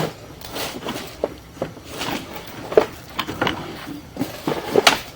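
A series of irregular knocks and clicks, a few each second, with the sharpest at the start and near the end.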